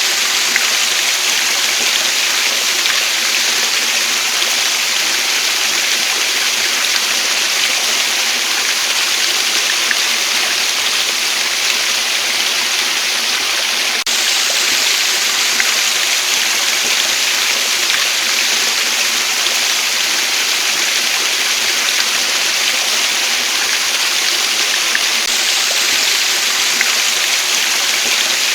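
Waterfall: a steady, even rush of falling water, bright and hissing with little deep rumble.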